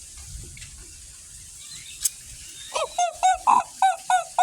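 A person making a rapid series of short, hooting call-like noises to the birds, about three a second, starting nearly three seconds in. A single sharp click comes just before them.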